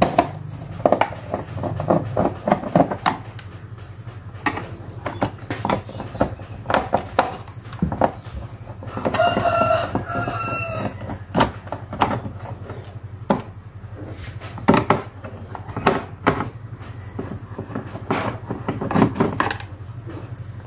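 Screwdriver clicking and scraping as screws are worked out of a plastic TV back cover, with knocks from hands on the cover, over a steady low hum. About halfway through, a rooster crows once, for about two seconds.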